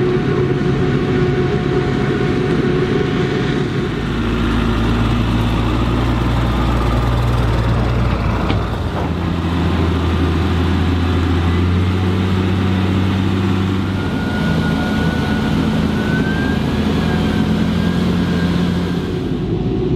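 Diesel engines of a forage harvester and tractors running steadily under load while chopping maize and hauling silage trailers. The engine note shifts abruptly about 4 and 8½ seconds in, and a faint rising whine comes in during the second half.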